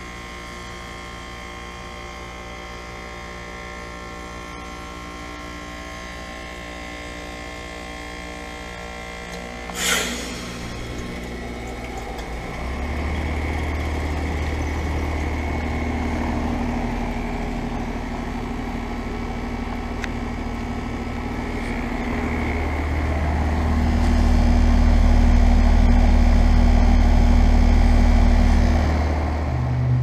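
A 2015 Payne 3.5-ton heat pump outdoor unit coming out of a defrost cycle: the compressor hums steadily, then about ten seconds in the reversing valve shifts with a sharp whoosh of refrigerant. A rushing hiss and a deep hum follow as the unit returns to heating, the hum growing louder in the last few seconds.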